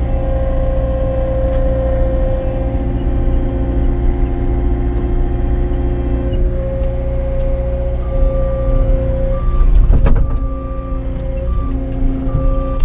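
Cat 259 skid steer's diesel engine running steadily under hydraulic work. From about 8 s in, a backup alarm beeps repeatedly, and there is a single heavy clunk about 10 s in.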